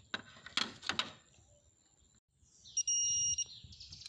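Digital torque wrench giving one high, steady beep of under a second near the 3-second mark, signalling that the set torque of 10 newton meters has been reached on the timing belt tensioner's 10 mm bolt. A couple of short knocks come about half a second in.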